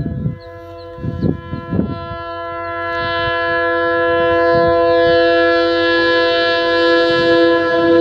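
Train horn sounding one long, steady note. It starts about half a second in and grows louder over the next few seconds, with two short knocks early on.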